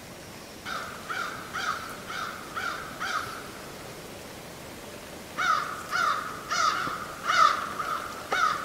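Crow cawing in two runs of short, harsh calls, about five caws in the first run and six or seven in a louder second run that starts a little over five seconds in.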